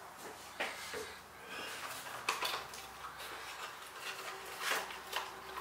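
Handling noises at a workbench: scattered rustles of a small cardboard box being turned over and opened, with a few light knocks as items are set down.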